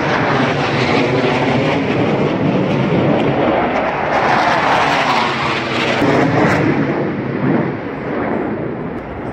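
An airplane flying past, its engine noise loud and steady, easing somewhat near the end.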